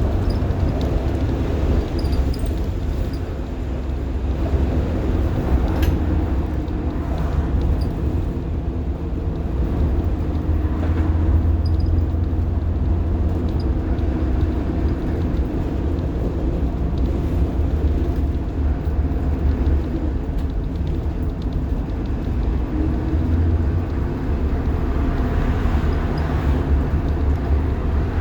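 Inside a 1990 Blue Bird All American school bus under way: its rear-mounted diesel engine running with a steady low rumble.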